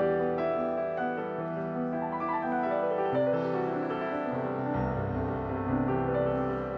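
Background music: piano playing held notes and chords, with deeper bass notes coming in about two-thirds of the way through.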